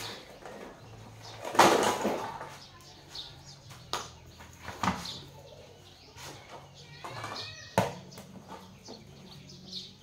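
Separate knocks and clatters of parts or tools being handled during a repair, the loudest about one and a half seconds in and others about four, five and eight seconds in, over a low steady hum.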